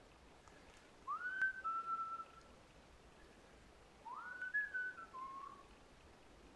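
Whistling: two short phrases, each a quick upward slide into a held note, the second stepping down lower at its end.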